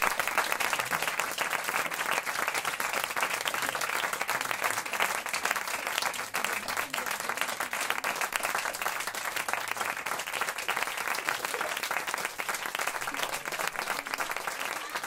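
Audience applauding steadily after the music has ended.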